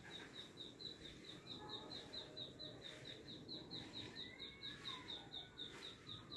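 Faint, rapid chirping: short high chirps repeated evenly, about six a second, without a break.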